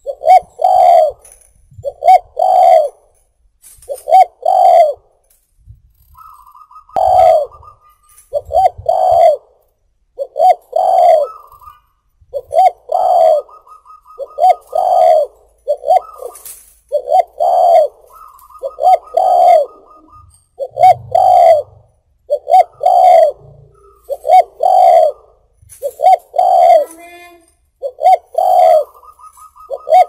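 A spotted dove cooing loudly and steadily, repeating its short two- to three-note phrase about every two seconds. A fainter, higher wavering tone comes and goes between some phrases.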